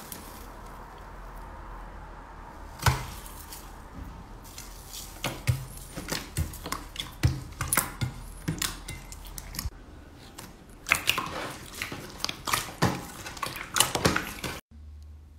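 Hands squishing and kneading clear slime in a stainless steel bowl: a run of sticky clicks and pops, starting with a single sharp one about three seconds in and coming thick and fast from about five seconds on. It cuts off suddenly near the end.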